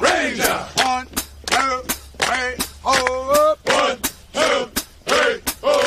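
U.S. Army Ranger running cadence: voices singing a military cadence over a steady percussion beat.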